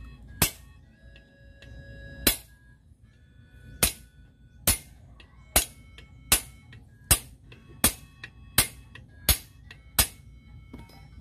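Hammer striking a rivet punch to set the rivets of new brake lining on a truck brake shoe: eleven sharp metallic blows, two slow ones and then a steady beat of about one every three-quarters of a second. Faint background music plays underneath.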